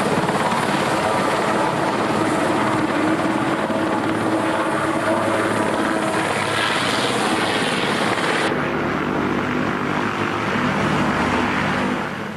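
Sikorsky S-61N passenger helicopter in flight, its rotors and turbines making a steady, loud drone. About eight seconds in the sound changes abruptly and loses its high hiss, then it fades away at the very end.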